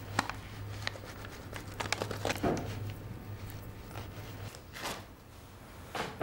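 Hands pressing, smoothing and pinching soft wet clay: irregular soft squelches and light taps. A steady low hum runs underneath and stops about four and a half seconds in.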